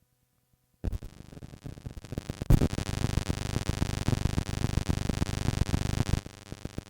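Cassette tape playback cutting in abruptly about a second in after near silence: music buried under heavy noise and dense clicking, dropping back to a lower level near the end.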